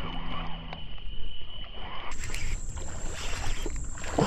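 Outdoor ambience: a low rumble under a steady high-pitched whine. The sound changes abruptly about two seconds in, when the whine jumps higher.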